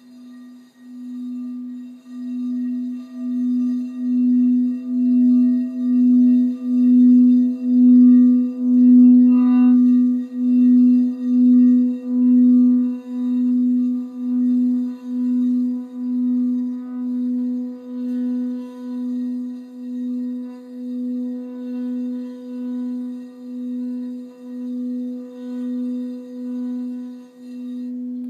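Crystal singing bowl tuned to B, played by circling a mallet around its rim: one steady ringing tone with a slow pulsing waver, about one pulse a second. It swells to its loudest about a third of the way in, then slowly eases off.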